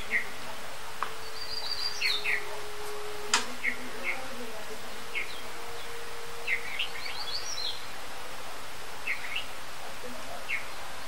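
Small birds chirping: short high chirps every second or so, some in quick runs of three or four, over a steady hiss. A single sharp click about three seconds in.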